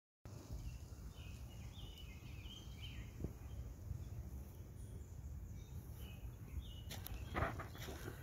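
Outdoor park ambience: a low rumble of wind on the microphone, with a bird chirping in short phrases during the first couple of seconds and again briefly around six seconds. Near the end come louder bursts of rustling noise.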